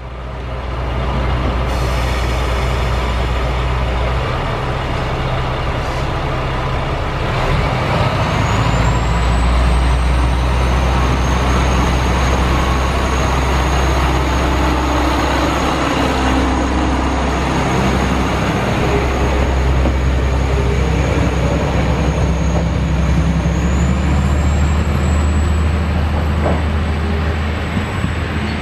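KTR700 series diesel railcar's engine running hard as it pulls away from the platform, a loud steady low drone. There is a short burst of air about two seconds in and a thin high whine that rises about eight seconds in.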